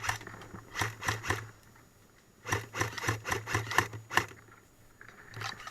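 Airsoft gun firing: a few sharp cracks, then a quick string of about eight shots in under two seconds, and more near the end.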